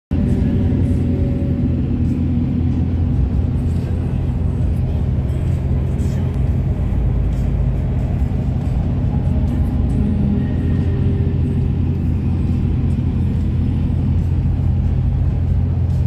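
Steady low road and engine rumble inside a moving vehicle's cab at highway speed.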